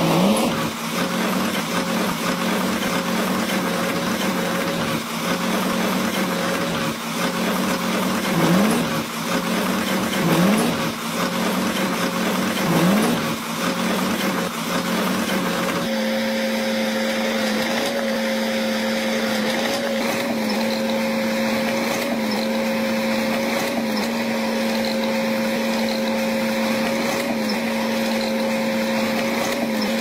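Crawler bulldozer's diesel engine running steadily under load as it pushes rock, its pitch rising briefly several times in the first half as it is throttled up.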